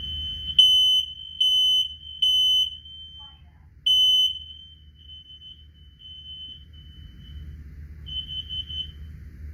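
Ceiling smoke alarm sounding on test: a high-pitched beep in three loud pulses about a second apart, a short pause, a fourth pulse, then a fainter continuing tone that flutters again near the end.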